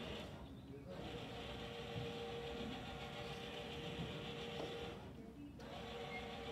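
Wheeled delivery robot's electric drive motors running with a steady hum, which drops away briefly twice, about half a second in and again about five seconds in.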